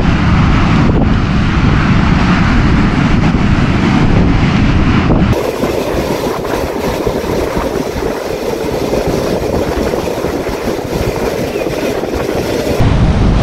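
Wind buffeting the microphone over the sound of beach surf, a loud, steady rumble. About five seconds in the low rumble drops away and a brighter hiss takes over, then the heavy rumble returns near the end.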